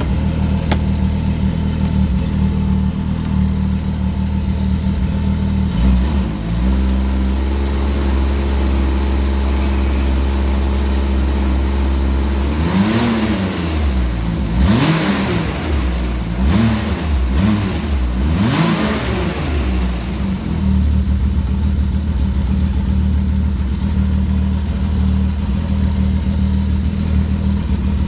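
2016 Ski-Doo Renegade X 1200 4-TEC snowmobile, its Rotax three-cylinder four-stroke engine idling through the stock exhaust, then revved in several short throttle blips about halfway through before settling back to a steady idle.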